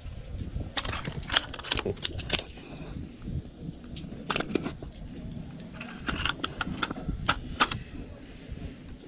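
Handling noise: a fish being turned in the hands and laid against a plastic measuring ruler on concrete, making clusters of sharp clicks and taps, over a steady low rumble.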